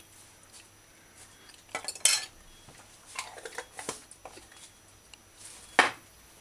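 A metal fork scraping and clinking against a plate of rice as food is eaten, in a few scattered strokes, the loudest near the end.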